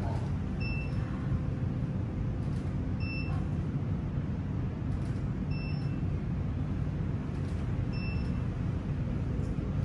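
A steady low rumble of background noise, with a short, faint high beep repeating about every two and a half seconds.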